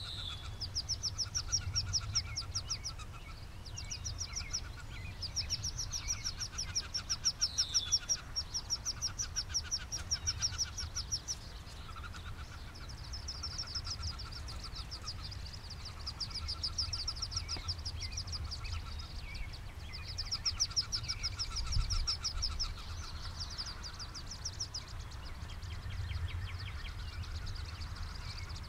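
Small birds singing: high, fast trills about two seconds long, repeated every few seconds, with a few short falling chirps and a steady low rumble underneath.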